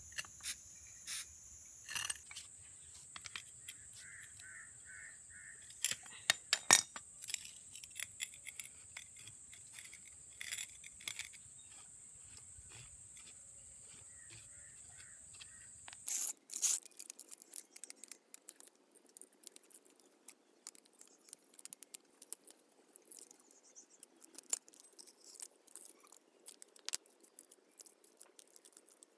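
Metal clinks and rattles from a rusty steel scissor car jack being worked by hand and taken apart, with loose bolts clinking on the bench. A steady high insect chirring sits behind the first half and cuts off about halfway.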